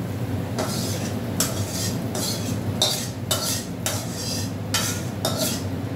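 Metal spatula scraping and clattering against a steel kadai in a string of short, sharp strokes, as fried kakrol (spiny gourd) and potato are scraped out into a pot of dal.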